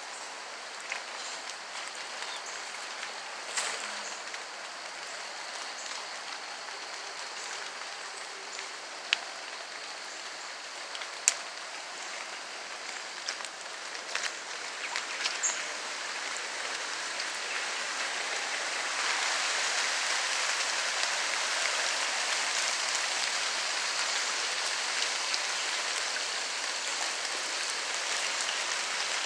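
Steady rain falling, with a few sharp drip-like taps; the rain gets heavier and louder about two-thirds of the way through.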